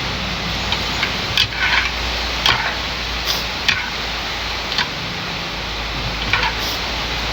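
Steady hiss of heavy rain, with scattered sharp ticks and clicks every second or so.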